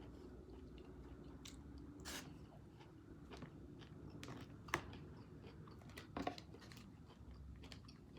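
A person chewing a mouthful of shrimp and vegetable hibachi, with soft wet mouth sounds and a few sharp clicks, the loudest about halfway through.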